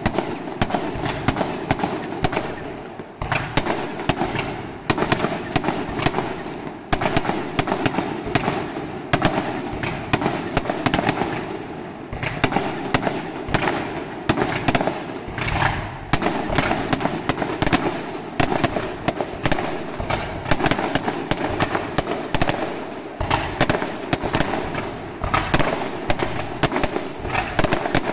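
Aerial fireworks display: a dense, unbroken barrage of shell bursts and crackling, with many sharp bangs a second overlapping throughout.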